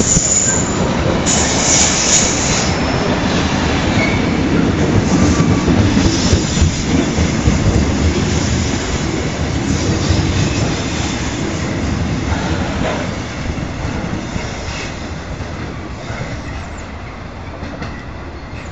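Engineering-train wagons loaded with concrete sleepers rolling past: a steady rumble and clatter of wheels on rail, with a brief high screech about two seconds in. The sound fades as the train draws away over the last few seconds.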